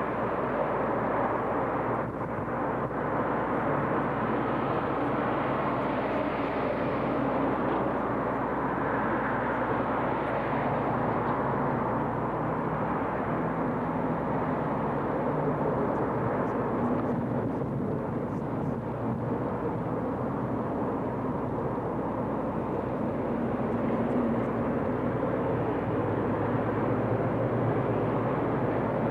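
Steady city street traffic noise, with some slow swells in level.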